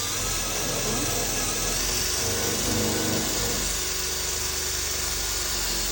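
A handheld power tool running steadily at an even pitch, in use stripping old paint off a door handle to uncover its screws.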